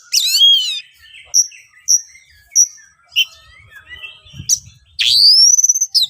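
Oriental magpie-robin (kacer) singing loud and rough: a fast run of rasping notes, then three short high whistles about half a second apart, then assorted chirps and a long rising whistle near the end.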